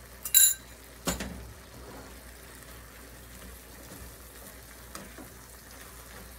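A metal teaspoon clinks against the wok with a short ringing ping, then a duller knock about a second in. After that the stir-fry of cabbage, mushrooms and shrimp sizzles softly in the wok as it is stirred with a ladle.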